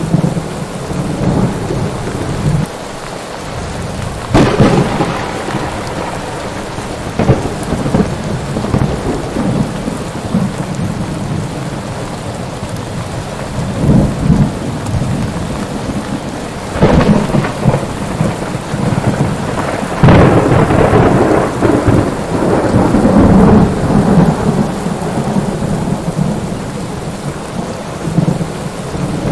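Steady heavy rain with repeated thunder: sharp cracks about four and a half seconds in and again near the middle, and a loud crack past two-thirds of the way that rolls on as rumbling for several seconds.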